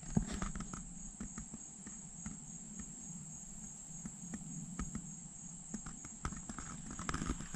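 Insects in the woods trilling as one steady high-pitched tone, with scattered light ticks and rustles.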